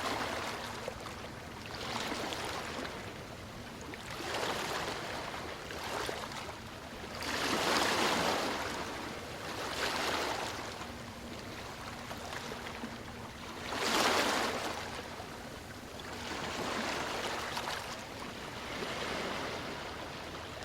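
Sea waves washing up a sandy beach, a rushing surge every two or three seconds that swells and falls back, with two bigger waves about eight and fourteen seconds in.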